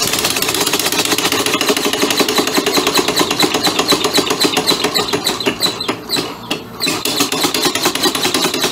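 Homemade two-cylinder compressed-air engine running fast on a bench stand, its exhaust puffing in a rapid, even rhythm over a steady air hiss. It slackens briefly twice about six seconds in, then picks up again, running at about the speed it needs for a good bicycle speed.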